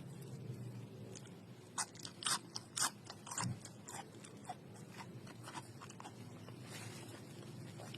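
Crunching bites and chewing of raw young pumpkin-shoot stems. A quick run of crisp crunches starts about two seconds in, then gives way to quieter chewing.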